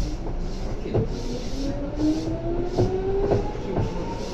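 Seibu 2000 series electric train running, with the whine of its traction motors and gears rising steadily in pitch as it picks up speed. Sharp clacks of the wheels over rail joints come every half second to a second over a low rumble.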